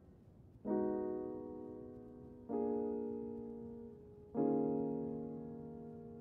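Slow piano music: three sustained chords struck about two seconds apart, each fading away before the next.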